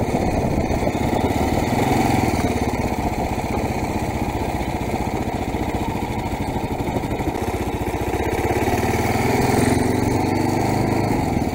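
2022 Kawasaki KLR 650's single-cylinder engine running steadily while the motorcycle is ridden at street speed, its note rising a little about nine seconds in.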